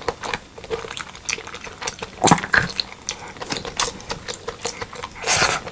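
Close-miked wet eating sounds of pork leg curry and rice being chewed: irregular smacking, sticky mouth clicks and squelches, with a louder wet burst about two seconds in and another near the end.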